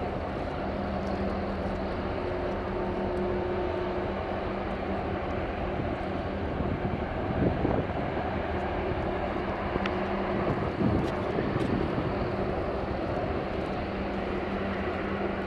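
Steady drone of marine diesel engines, a low engine hum over the wash of water and wind, with a couple of brief louder bumps about halfway and two-thirds of the way through.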